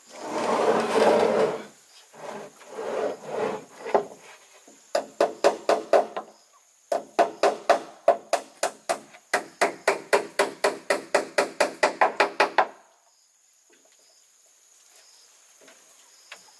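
Hand work on wood: two long rasping strokes, then runs of rapid knocks on wood at about six a second, which stop about 13 seconds in.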